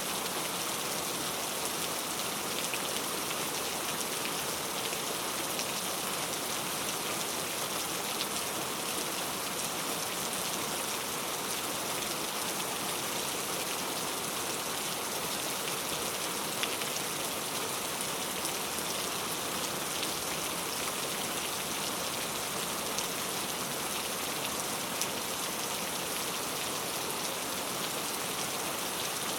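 Steady rainfall, an even hiss with scattered drops ticking on a surface.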